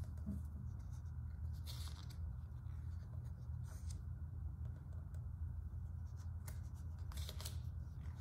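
Pages of a large art book being turned by hand: short paper swishes about two seconds in and again near the end, over a steady low hum.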